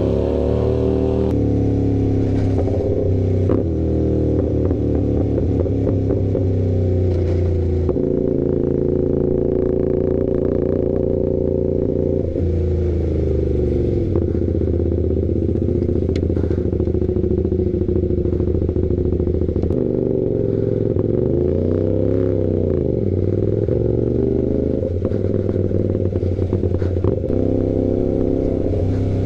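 Sport motorcycle engine running under way, heard from the bike itself, its revs rising and falling as it rides. About 21 seconds in the revs climb quickly and drop back down.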